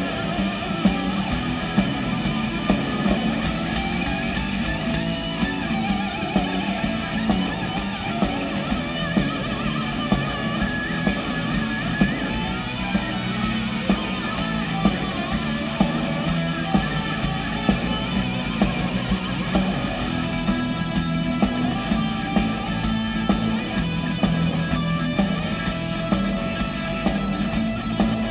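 Rock band playing an instrumental passage: electric guitar playing lead over bass and drums, with a steady beat and no singing.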